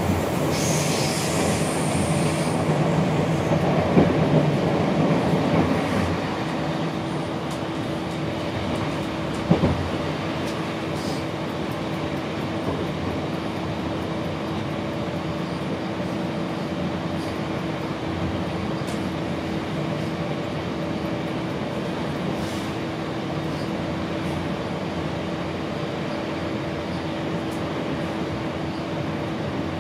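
Passenger train running along the line, heard from inside the carriage: a steady rumble of wheels on rails with a constant hum. A brief high hiss comes near the start, the noise is louder for the first few seconds, and there is one sharp knock about nine and a half seconds in.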